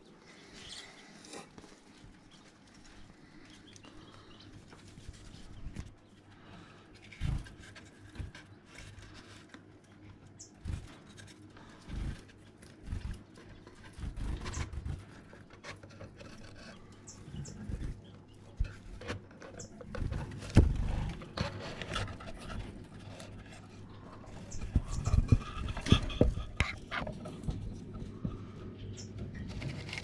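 Irregular knocks, bumps and rustles from a wooden finch nest box being handled and opened, its lid lifted by hand. The loudest bump comes about two-thirds of the way in, with a run of knocks near the end. A few faint, short high chirps from the finches are also there.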